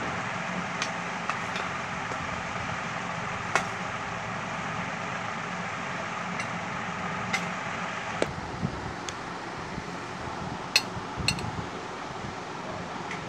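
Small steel spoon scraping and clinking against a small steel bowl while stirring rice, with a dozen or so sharp clinks scattered through and two ringing ones near the end. A steady fan-like whir runs underneath.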